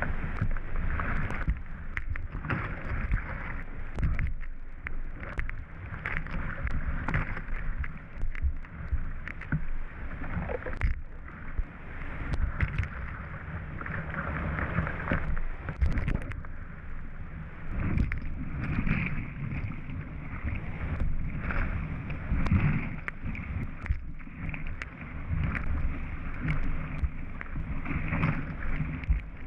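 Whitewater of a rain-swollen creek rushing and churning around a kayak running rapids. Paddle strokes and frequent sharp splashes of spray run through it.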